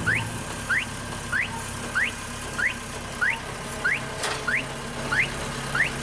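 An engine running at a low, steady idle, with a short rising chirp repeating about every two-thirds of a second over it. There is a single sharp knock about four seconds in.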